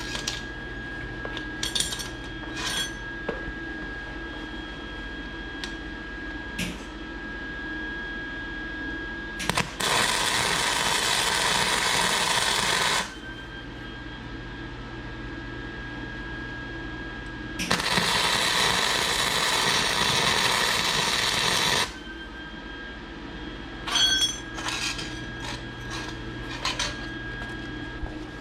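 Welder running two welds on a steel shifter rod, each a steady noise of about three and four seconds, with short clicks and taps of metal being handled before and after. A steady faint hum runs underneath.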